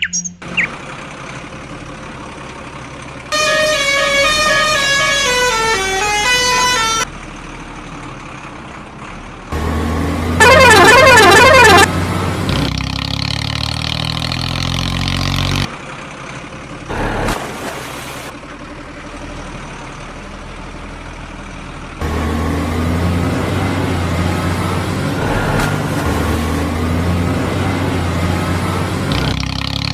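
Vehicle sound effects dubbed over toy trucks. A falling run of electronic tones comes a few seconds in. About ten seconds in, a loud warbling electronic tone sounds briefly. A low engine sound then runs, and returns steadily for the last third.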